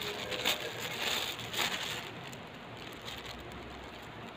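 Thin plastic bag crinkling and rustling as fingers dig into it for pieces of smoked duck. The rustling is loudest in two bursts within the first two seconds, then settles to a quieter rustle.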